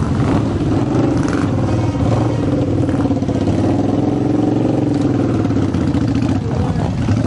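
A motor vehicle's engine running close by, its hum steady with a slight rise and fall in pitch midway.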